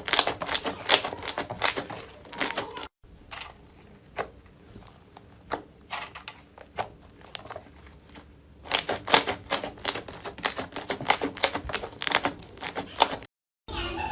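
Slime being pressed and squeezed by hand, giving rapid crisp clicks and pops, sparser in the middle stretch. The sound breaks off abruptly about three seconds in and again near the end.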